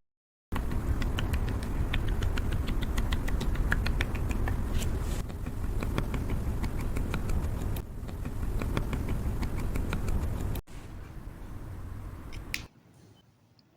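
Slime being squeezed and kneaded by hand, with rapid, irregular wet clicks and pops from trapped air. It breaks off abruptly a few times and fades to faint ticks near the end.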